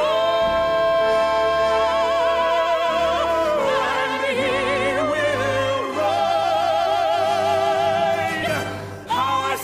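A show tune sung in a trained, operatic style over an orchestra, with long held notes and wide vibrato. The sound dips briefly near the end, then the singing comes back in.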